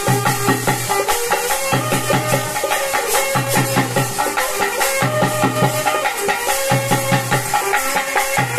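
Ritual music accompanying a Chamundi kola dance: a wind instrument plays a melody that steps from note to note over steady drumming and a dense, rattling percussion beat.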